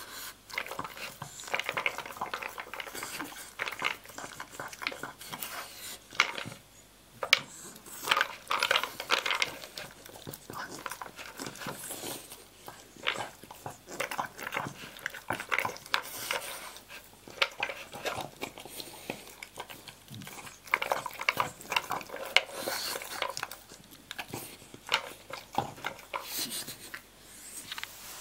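Dog eating dry kibble from a plastic slow-feeder bowl: irregular crunching and chewing, with kibble rattling and clicking against the plastic as the dog noses it out from between the bowl's raised pegs.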